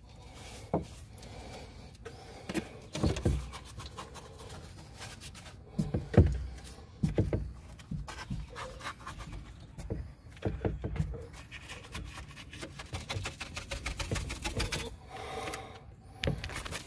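Scattered scrapes and clicks of a chip brush dipped into a plastic mixing cup of resin and dabbed along the edge of a core panel, with a few dull handling thumps.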